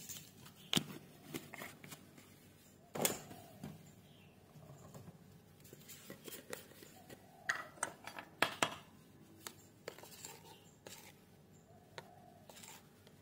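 Scattered light clinks and knocks of kitchen utensils and containers being handled, a few seconds apart, the loudest about three seconds in and a quick cluster of them near the middle.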